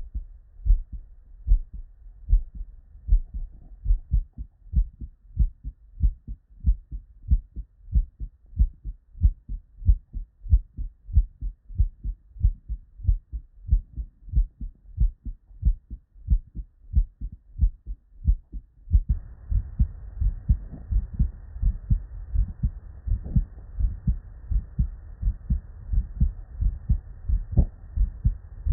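Normal human heartbeat heard through a stethoscope: a steady rhythm of paired lub-dub sounds (S1 and S2), a little over one beat a second. About two-thirds of the way through, a different patient's recording takes over with a faint hiss behind the beats.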